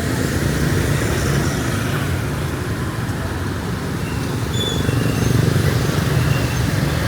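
Steady street traffic: motorbike and car engines running past on a wet road. A few short high-pitched chirps come through in the second half.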